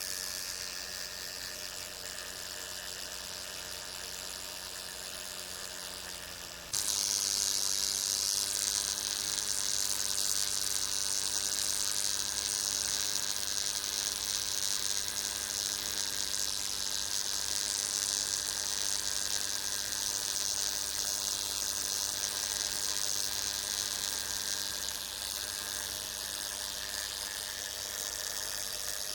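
Brown marmorated stink bug buzzing its wings in a steady, even hum. About seven seconds in the buzz jumps suddenly louder, with a hissing edge, and carries on that way.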